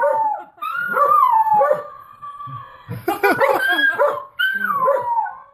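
A dog howling and whining in drawn-out wails that slide down in pitch, several in a row, with a quick run of short yelps about three seconds in.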